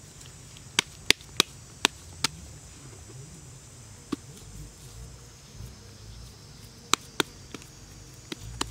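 Hands slapping and patting wet clay to pack it around a whole fish: a quick run of sharp slaps in the first two seconds or so, then a few single ones spread out, two close together about seven seconds in. Insects keep up a steady high drone behind them.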